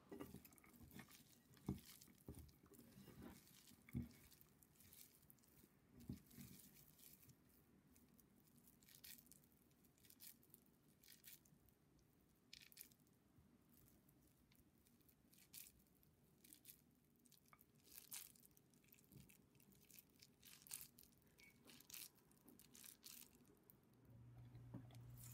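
Near silence with faint, scattered squelches and crunches: hands squeezing a wet, batter-coated mixture of enoki mushrooms, shrimp and chopped vegetables into balls in a ceramic bowl. A low steady hum starts near the end.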